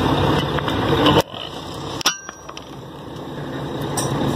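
Truck cab noise while driving on a dirt road: a steady engine and road rumble that drops away abruptly about a second in, then slowly builds back. A sharp click with a short ring comes about halfway through.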